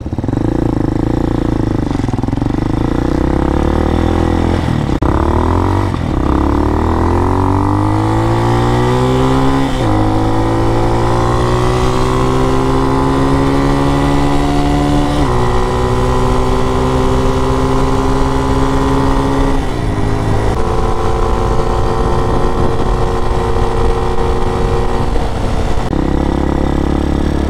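Fuel-injected Hawk DLX 250 dual-sport motorcycle engine, a single-cylinder, accelerating hard from a standstill and shifting up through the gears, its pitch rising and dropping back at each of several shifts, then cruising steadily before dropping in pitch near the end as it slows. The engine is running a custom ECU tune.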